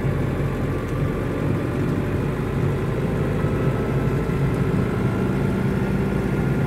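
GAZelle light truck driving slowly, its engine and road noise heard from inside the cab as a steady low hum.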